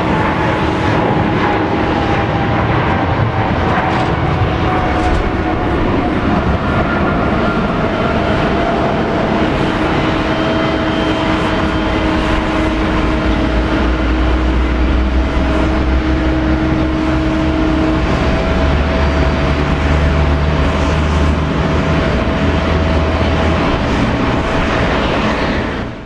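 Boeing 777-300ER's twin GE90 turbofans running at takeoff thrust as the airliner rolls, lifts off and climbs away. A loud, steady engine noise with a whine that falls slowly in pitch, cutting off abruptly at the end.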